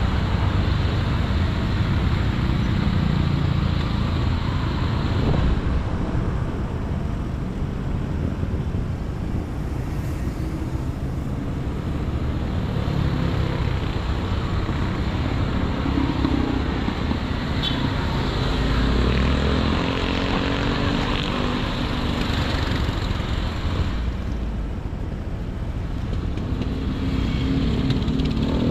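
Motor vehicle engines and road traffic noise, a steady mix with engines swelling and fading as vehicles pass on the road.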